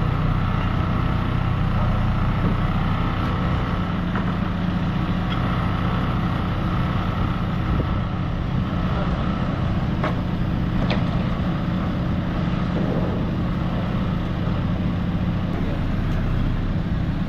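Diesel engine of a backhoe loader running steadily while its boom holds and lifts a load, with a couple of sharp knocks about ten seconds in.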